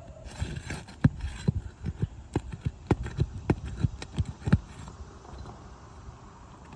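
Quick series of about a dozen sharp knocks, roughly three a second, from a hand tool striking as nails are worked out of asphalt roof shingles; the knocks stop about four and a half seconds in.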